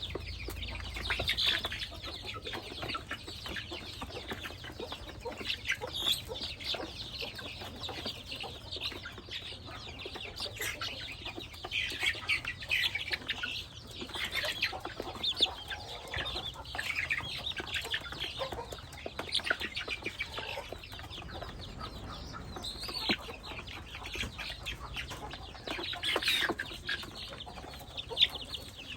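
A flock of young, half-grown chickens cheeping and clucking, many short high calls overlapping without a break.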